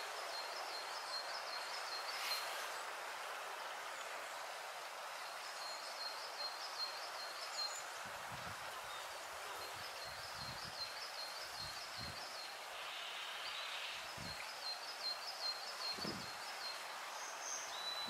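Small mountain stream trickling and babbling over rocks, a steady rush of water, while a small songbird repeats a quick, high trilling phrase several times. A few soft low thumps come in the second half.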